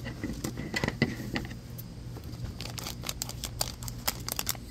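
Crinkling plastic blind-bag toy wrapper being handled and snipped open with scissors, a run of sharp crackles and clicks that grows denser in the second half.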